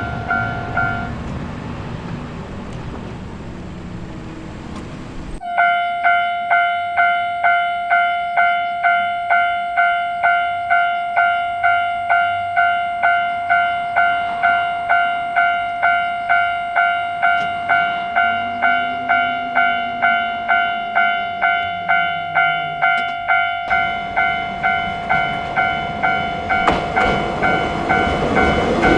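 Japanese level-crossing warning bell ringing, about two and a half dings a second. A train's running noise covers it for a few seconds after the start and builds again over the last few seconds.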